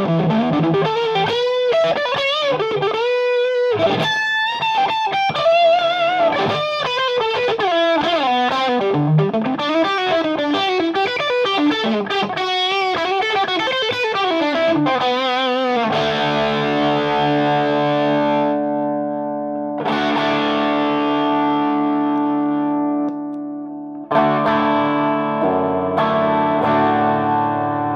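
Electric guitar overdriven through a Frantone Hep Cat pedal into a Marshall JVM clean channel: single-note lead lines with string bends for the first half, then chords struck and left to ring, restruck twice near the end.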